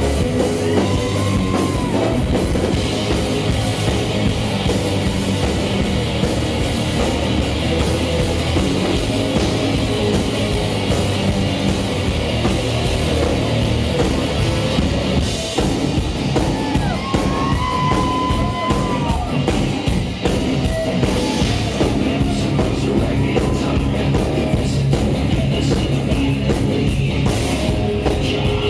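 Live heavy metal band playing loud: electric guitar, bass guitar and drum kit, with a singer yelling and singing into the microphone.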